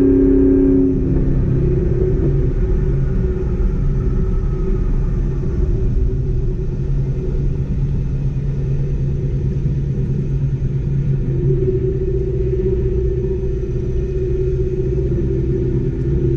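Car being driven, heard from inside the rear of the car: a steady engine drone over low road rumble. The drone eases about a second in and firms up again past the middle.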